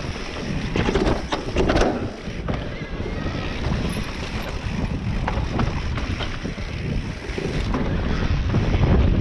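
Wind buffeting the microphone of an onboard camera on an electric enduro mountain bike riding downhill, with repeated knocks and rattles from the bike over rough trail, several sharp ones about one to two seconds in.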